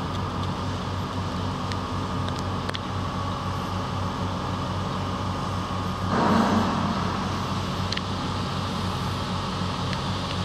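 Diesel engine of a 250-tonne mobile crane running steadily under load while lifting a 75-tonne workboat. It swells louder for about a second midway, and a few faint clicks sound now and then.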